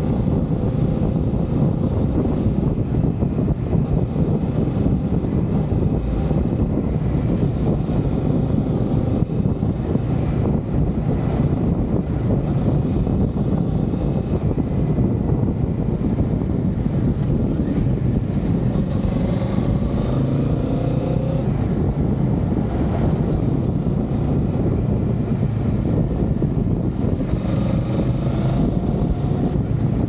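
Kawasaki Z650 parallel-twin engine running steadily while the motorcycle is ridden, its pitch rising briefly about two-thirds of the way through and again near the end.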